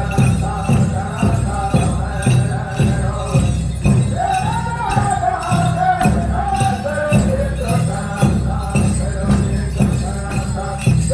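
Powwow-style drum song: a steady drum beat with high singing held and sliding over it.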